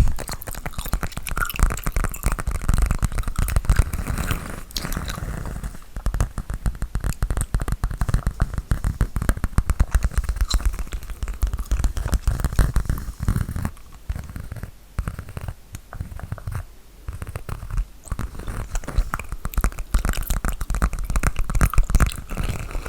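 Fingers and nails rapidly tapping and scratching on a bag held close to the microphone, a dense run of quick taps and scrapes with heavy low thuds.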